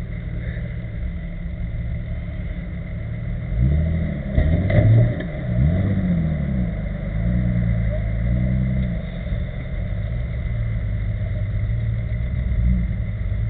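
Jeep Cherokee's engine revving up and down several times under load as it crawls over a muddy ditch bank, loudest a few seconds in. A steady low engine rumble runs underneath.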